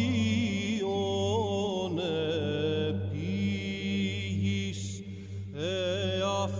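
Greek Orthodox Byzantine chant: voices sing a slow, ornamented melody over a steady low held drone note (the ison), pausing briefly about five seconds in.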